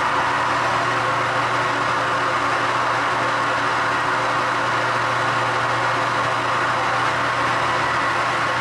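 A motor-driven machine spindle running at steady speed, spinning a 3D-printed knob on an arbor while its face is polished with felt; an even hum with a hiss of rubbing over it.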